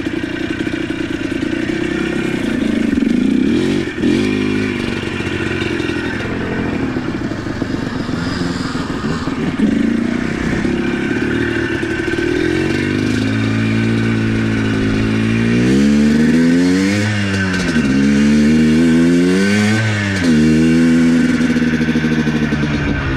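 ATV engine running under way, its pitch rising and falling several times as it is revved over the second half, with a sharp knock a few seconds in.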